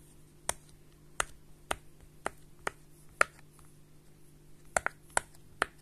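Silicone pop-it fidget toy's bubbles being pushed through one at a time with a finger: a series of sharp little pops, about one every half second, with a pause of over a second in the middle and a quick pair near the end.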